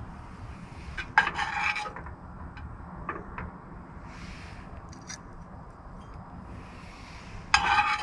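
A utensil scraping twice as food is served onto a plate, once about a second in and again near the end, with a few light clicks between.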